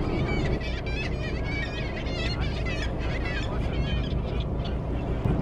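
Birds calling: many short, wavering, high calls in quick succession for about the first four seconds, over the low steady running of a boat's engine.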